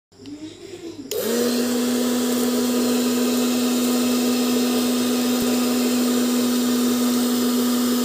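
Small DC motor of a homemade plastic-bottle vacuum cleaner switched on about a second in. It spins up quickly and runs at a steady hum with an even rush of air through the hose.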